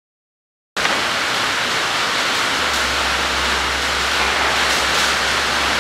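Loud, steady rushing hiss that starts abruptly just under a second in, with a low hum joining about two and a half seconds in.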